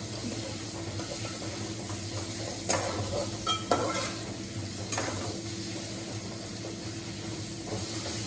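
Garlic paste and spices sizzling steadily in hot oil in a metal kadai while a metal utensil stirs and scrapes against the pan, with a few sharper scrapes about three to five seconds in.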